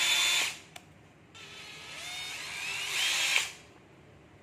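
Makita cordless oil-pulse impact driver running free with no load, triggered in short squeezes. A run ends about half a second in. The motor then spins up again with a rising whine, holds for a moment and stops when the trigger is released.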